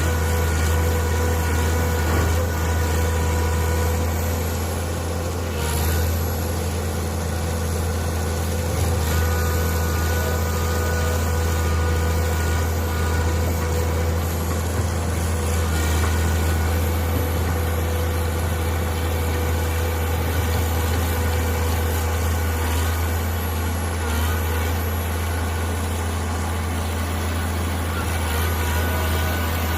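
Mini excavator's engine running steadily: a constant low drone with steady whining tones above it, and a faint high whine that dips and comes back a few times.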